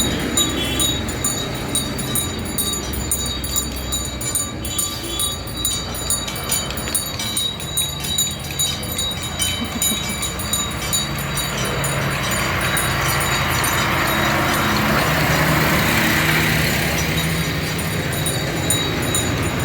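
Farm tractors driving past with their engines running, the noise swelling as one comes close about three-quarters of the way through.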